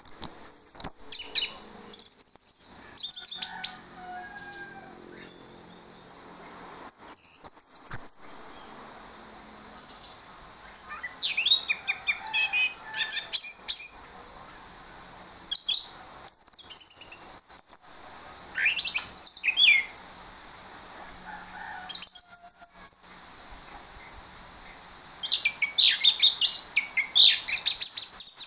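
Orange-headed thrush (anis merah) singing loud, rapid, varied high-pitched phrases in bursts separated by short pauses, busiest near the end.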